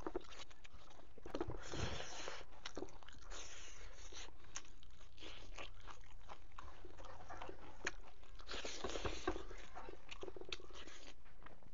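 A person chewing a mouthful of pork and greens close to the microphone, with many irregular crunches and wet mouth clicks.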